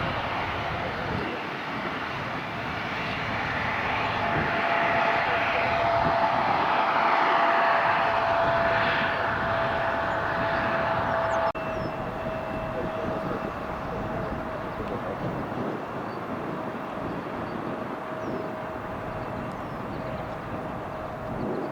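Jet airliner engines roaring with a steady whine, swelling to a peak about seven seconds in. About halfway through the sound changes abruptly to a steadier, slightly quieter jet roar with a higher whine added.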